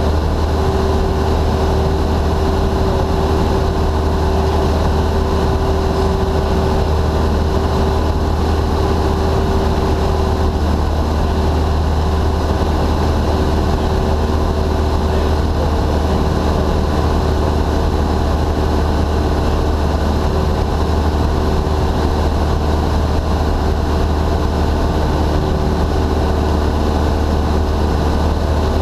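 Single-engine Cessna's piston engine and propeller running steadily in flight, heard from inside the cabin as an even, deep drone with a held higher tone.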